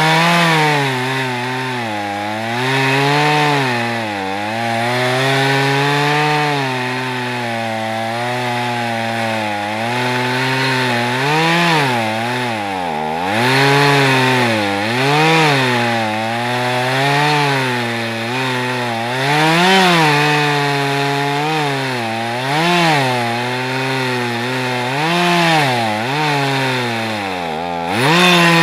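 Stihl MS 391 two-stroke chainsaw running at high revs in a Granberg chainsaw mill, ripping a 2-inch oak plank along the log. The engine pitch repeatedly sags and recovers as the chain loads up in the cut, with a deeper dip about halfway through and another near the end.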